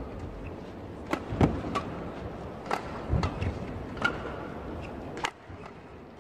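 Badminton rackets striking a shuttlecock in a fast doubles rally: a string of sharp cracks at irregular intervals over arena hall noise. The last strike comes a little over five seconds in, after which the sound drops.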